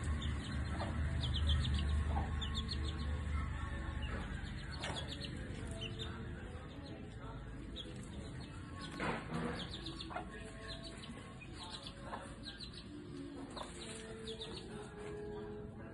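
Gamefowl chicks peeping: short high chirps in quick runs, repeated throughout. A low rumble is loudest during the first four seconds.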